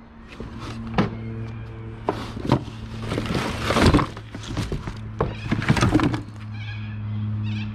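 Knocking and clattering of scrap items being rummaged through and tossed aside, a rapid run of sharp knocks for about six seconds, over background music.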